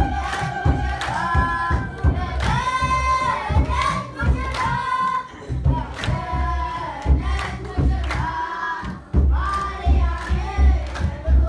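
Congregation singing an Ethiopian Orthodox hymn together, many voices holding and gliding on long notes, over a steady beat of about two strokes a second.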